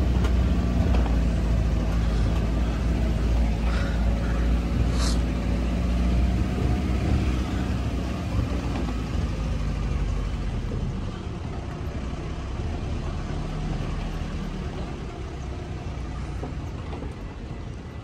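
Low rumble of a resort buggy ride with a steady low hum, growing gradually fainter over the stretch. A short high chirp sounds about five seconds in.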